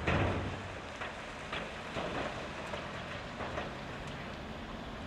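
Blasted rock pouring from a wheel loader's side dump bucket into a steel dump truck body: a loud crash of rock at the start, then scattered knocks and clatter of stones. Underneath runs the steady sound of the Volvo L260H's diesel engine.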